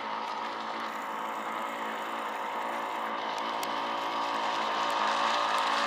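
Radio-controlled shovel-nose gas boat's two-stroke engine running steadily at part throttle as the boat planes across the water, getting slightly louder near the end.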